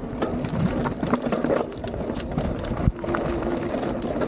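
Mountain bike rolling fast down a rough dirt trail, its parts clattering and ticking over the bumps, with a heavy thump about three seconds in.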